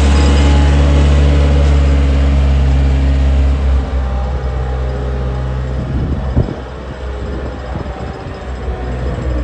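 Kubota FC4-501 ride-on mower's four-cylinder Kubota diesel running steadily, loud and close at first. About four seconds in it drops in level and turns rougher as the mower moves across gravel, with one sharp knock a couple of seconds later.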